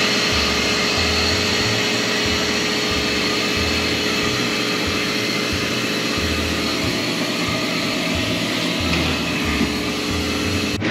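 Steady machine whir with a hissing rush, with uneven low rumbling underneath.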